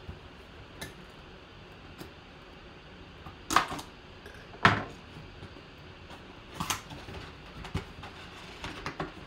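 A cardboard mini helmet box being handled on a table, giving a few scattered taps and knocks. The two loudest knocks come about three and a half and four and a half seconds in. The box's cardboard flap is pulled open near the end.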